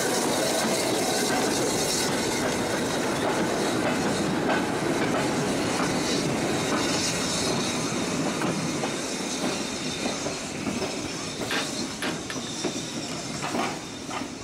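Train rolling past over a level crossing: steady wheel and rail noise with some clickety-clack, fading gradually. A few sharp knocks come near the end.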